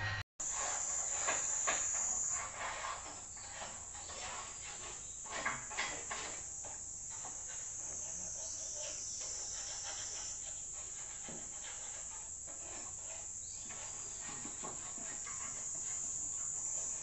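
Cicadas shrilling steadily in a high, even buzz, with scattered faint knocks and clatters, a few louder in the first two seconds and about five to six seconds in.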